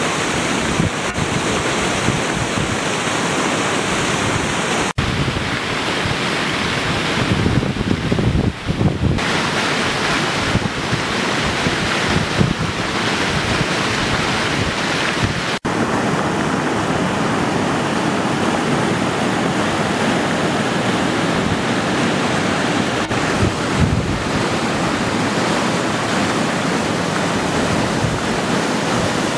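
Muddy flash-flood runoff rushing and churning down a dirt track and gully in a steady, loud roar of water, with wind buffeting the microphone.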